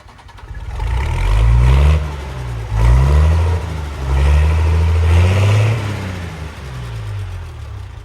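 A heavy vehicle's engine accelerating. Its pitch climbs, falls back and climbs again about three times, then it runs lower and steadier near the end.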